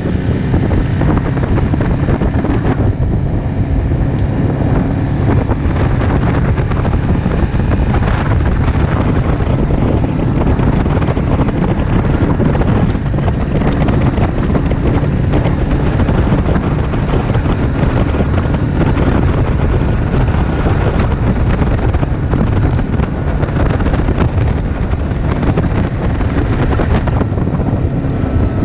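Vehicle engine running steadily while riding along a gravel road, with wind buffeting the microphone.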